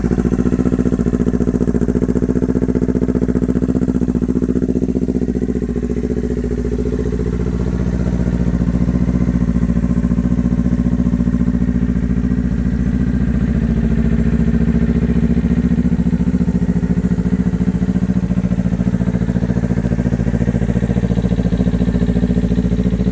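Kawasaki Ninja 400's parallel-twin engine idling steadily through an aftermarket exhaust, warming up after a cold start, dipping slightly about six seconds in before settling again.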